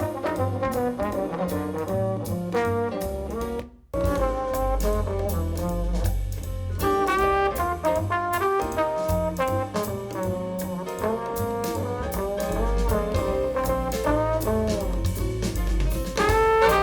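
Instrumental jazz with trombone and trumpet leads and a bass line, played through DALI bookshelf hi-fi speakers and picked up by room microphones. The music cuts out for a moment about four seconds in, then carries on.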